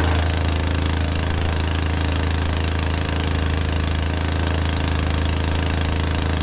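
Diesel engine of a John Deere 9986 cotton picker idling steadily, just after a start that was in doubt.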